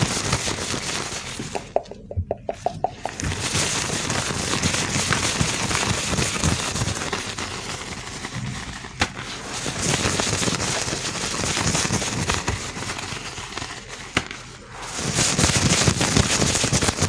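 Gloved hands rubbing and handling close to the microphone: a dense crackling and rustling, with a brief lull about two seconds in and a louder stretch near the end.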